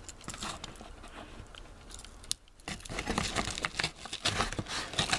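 A pocket knife cutting open a padded paper mailer, the paper crinkling and tearing: a few light clicks at first, then a dense run of crackling rustle from about three seconds in.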